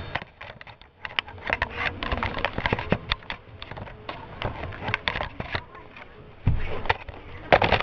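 Handling noise of toy train cars and a camera being moved close by: irregular clicks, scrapes and knocks, with two louder thumps near the end.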